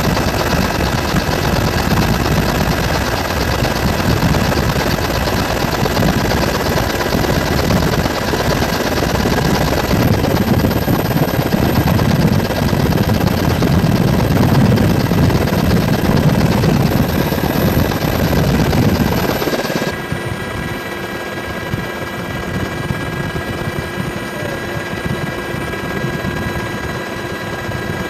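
Helicopter rotor and engine noise heard from inside the cabin: a loud, steady drone with several steady tones through it. About twenty seconds in it becomes quieter and loses its deep low end.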